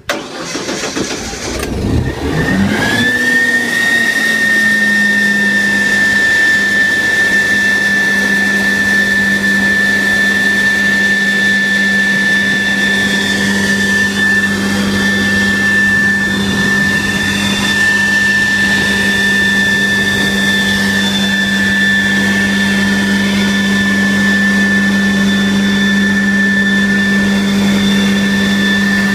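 Sapphire 870 truck-mounted carpet cleaning unit starting up: the engine catches and rises in pitch over the first three seconds, then runs steadily, a constant hum under a high steady whine.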